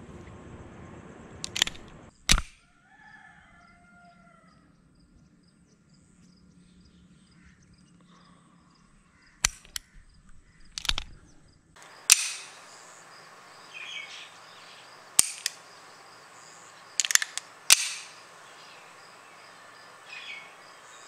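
Beretta M9 9mm pistol being dry-fired: about eight sharp metallic clicks at uneven intervals, from the hammer snapping down on an empty chamber and the action being worked. A bird chirps briefly near the start.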